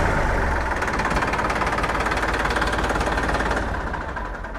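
New Holland 3230 NX tractor's three-cylinder diesel engine running with the rear PTO engaged and spinning, with the gearbox in neutral; a steady diesel clatter that dies down in the last second.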